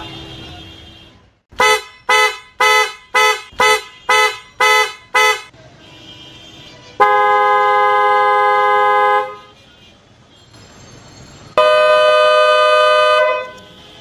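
PIAA dual-tone electric car horns being sounded in a test: a quick string of about eight short toots, then a long steady blast from the PIAA Slender Horn pair, two notes together (400 and 500 Hz), and near the end another long two-note blast pitched a little higher.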